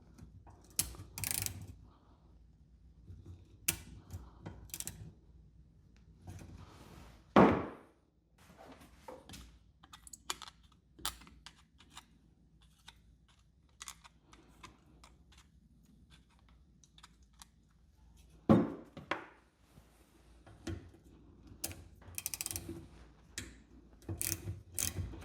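Hand-tool work loosening the tight bolts that hold an outboard motor's lower unit: scattered metal clicks and clinks, with two loud knocks about 7 and 18 seconds in.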